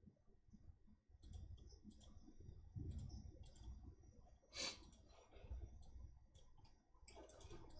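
Faint computer mouse clicks, scattered irregularly, with one louder click about four and a half seconds in, over a low rumble of room noise.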